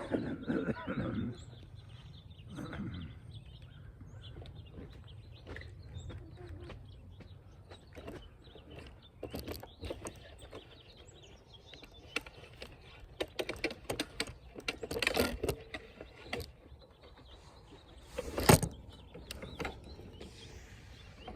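Handling noise as a tripod is fitted onto a wheelchair: scattered clicks, knocks and rustling, with one sharp knock near the end.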